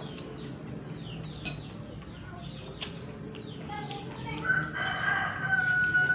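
A rooster crowing: one long drawn-out call starting about four and a half seconds in, the loudest sound here. Faint high chirps repeat throughout.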